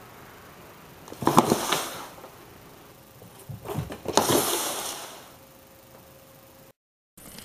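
A cat diving into a cardboard box and shoving it along a wooden floor: two bursts of cardboard scraping and rustling, the first about a second in and the second around four seconds in.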